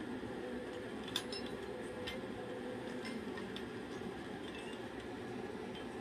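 A cockatoo's beak gnawing at a wooden slat chew toy, giving a few faint, scattered clicks over a steady low hum.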